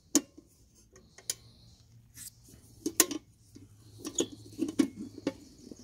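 Hinged metal cover of a campsite electrical power pedestal clacking and rattling as it is pushed shut over a plugged-in power cord: a series of sharp clicks and knocks.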